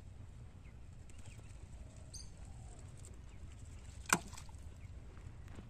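A single sharp plop about four seconds in as the baited hook and float of a bamboo fishing pole land on the pond water, over a low steady rumble.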